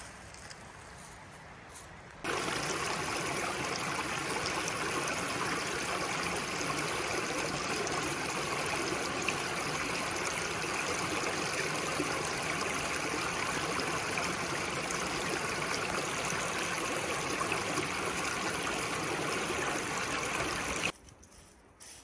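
Running water of a stream, a steady rush that starts abruptly about two seconds in and cuts off abruptly about a second before the end.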